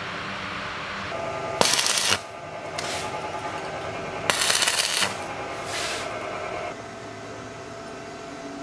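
Stick (arc) welding on steel plate: two short bursts of loud crackling hiss, about two seconds in and again near the middle, over a steady lower background.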